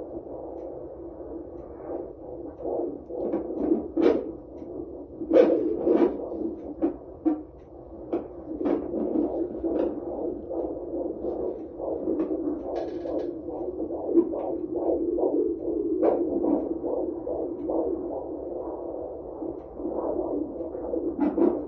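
Fetal Doppler monitor playing the unborn baby's heartbeat: a fast pulsing whoosh through the Doppler speaker. Loud scratchy crackles from the probe break in several times, strongest about four to six seconds in.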